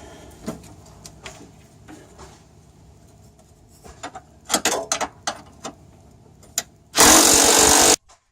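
Scattered knocks and clinks of hitch hardware being handled, then a loud burst of about a second from a cordless impact wrench driving a hitch bolt, stopping abruptly near the end.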